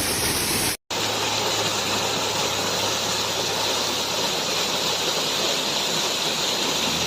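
Waterfall rushing in a steady, even roar. The sound breaks off for an instant less than a second in, at an edit cut.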